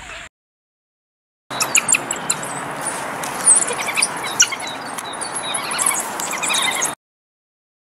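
A pack of African wild dogs (painted wolves) twittering: many rapid, overlapping high chirps and squeaks over a steady hiss. It starts about one and a half seconds in and cuts off abruptly near the end.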